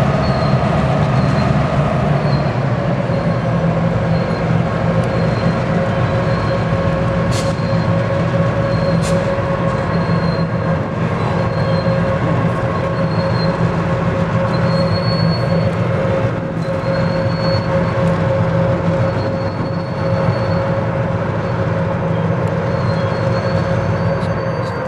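Several EMD MP15 switcher locomotives' diesel engines working hard under load as they push a long freight train, a steady low drone with a steady whine above it. A thin high squeal from the rails comes and goes, with a few sharp clicks in the middle.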